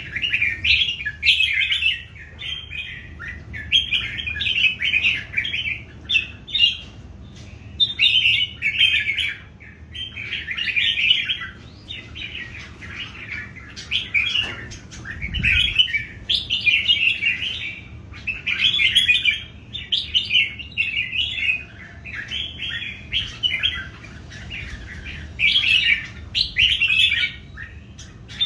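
Red-whiskered bulbuls singing against one another in a song contest: short, bright warbling phrases of about a second each, one after another with brief pauses between them.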